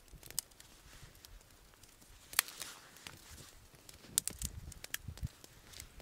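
Thin dry twigs snapped by hand for kindling: a few short, sharp cracks, the loudest about two and a half seconds in and a quick run of them a little past four seconds, with a few soft low thuds between.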